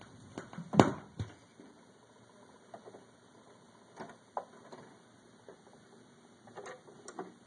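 7-inch vinyl single still turning on a turntable after the music has stopped: faint surface hiss with scattered clicks and knocks, the loudest a thump about a second in.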